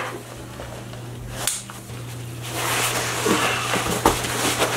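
Fabric rustling and strap knocks from a hunting backpack loaded with weight plates as it is handled and shouldered, rising about halfway through, over a steady low hum. A couple of sharp knocks come early on.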